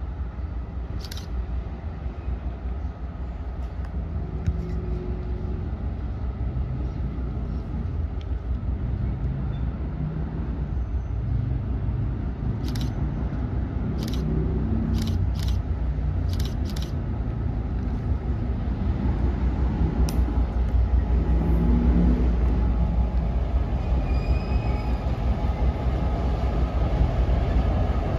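A diesel train approaching: a low, steady rumble that builds slowly louder. A few sharp clicks cut through it, spaced a second or less apart, about halfway in, from a camera shutter.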